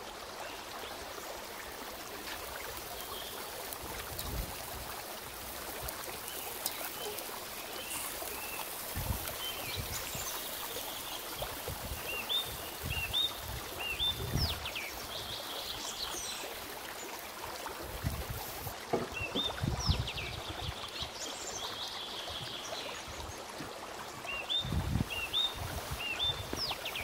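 Small birds chirping, short upswept calls in quick runs, over a steady outdoor hiss, with a few low thuds.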